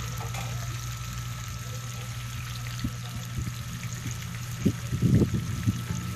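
Parboiled pork pieces sizzling in hot oil in a metal wok, frying until crisp, with a few knocks of metal tongs against the pan about five seconds in.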